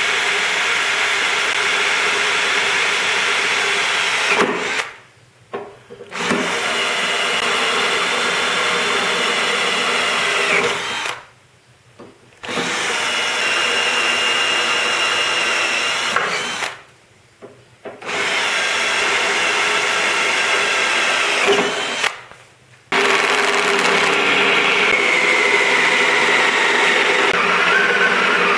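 Makita 18V cordless drill boring into a steel block with a twist bit, running in steady runs of about four seconds broken by short pauses, five runs in all.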